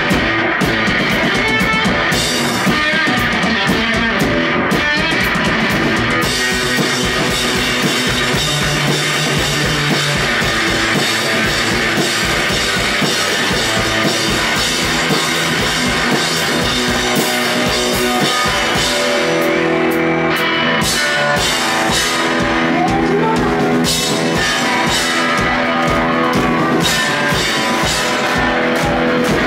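Live rock performance by a two-piece band: electric guitar and drum kit playing loudly together.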